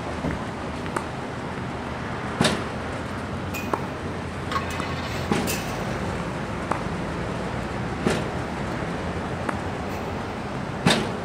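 Tennis ball machine firing balls, one sharp pop about every three seconds (four times), with fainter pops of the ball being struck back with a racket in between, over a steady low hum.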